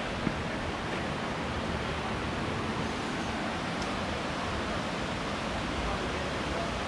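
Steady, even rush of water: a rocky creek flowing, with rain starting to fall.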